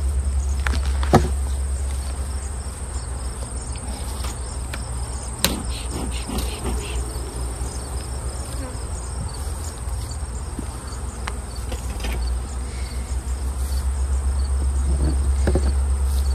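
Honeybees buzzing around an opened hive, with a steady high-pitched insect trill and a low steady rumble underneath. Two sharp wooden knocks, about a second in and again about five seconds in, as hive boxes are handled.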